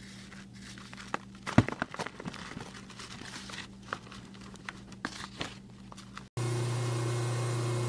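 A crumbly powder block being cut through with a knife: soft crackling and crunching as it breaks up and the powder pours down, with a louder crunch about a second and a half in. About six seconds in the sound changes suddenly to a steady, louder hum and hiss.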